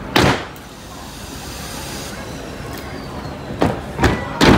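Sharp smacks from a precision drill squad working its rifles: one loud smack just after the start, then three quick smacks about half a second apart near the end, over a steady background hiss.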